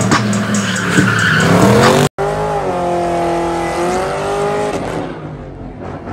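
Car burnout: the engine is revved hard, rising and falling in pitch, with the tyres squealing against the pavement. About two seconds in the sound cuts to another burnout with the engine held at steady high revs, which drops away near the end.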